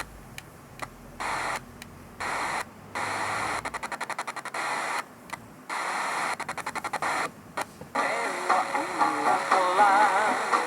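Sony ICF-SW30 radio playing static hiss that cuts in and out, with stretches of rapid pulsing. About eight seconds in, a warbling tune comes through.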